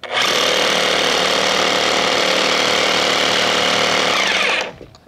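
Hammer drill boring an anchor bolt hole into a concrete floor slab, running loud and steady, then winding down and stopping near the end.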